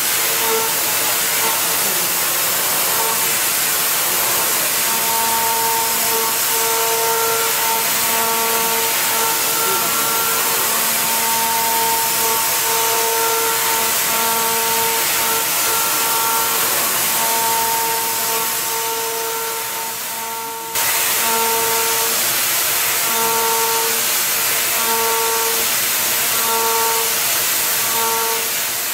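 CNC milling machine cutting under flood coolant: a steady spray hiss with a pitched cutter whine that comes and goes in short spells as the tool engages and leaves the cut. The sound breaks off abruptly about two-thirds of the way through and picks up again.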